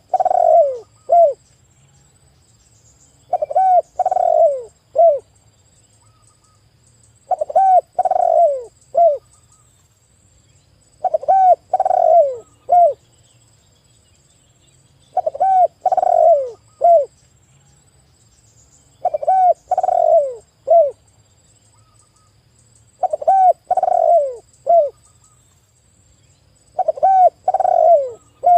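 Spotted dove (tekukur) cooing loudly: a phrase of three or four low, bending coo notes, repeated about every four seconds.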